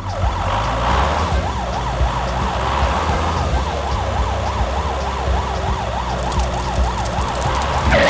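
Fire-engine siren in a fast electronic yelp, its pitch sweeping up and down about three to four times a second over a low, steady rumble.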